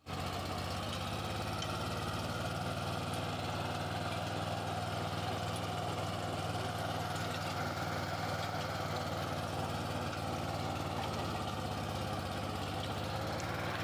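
Swaraj Code mini tractor's diesel engine running steadily at constant speed while it pulls a rotary tiller through the soil.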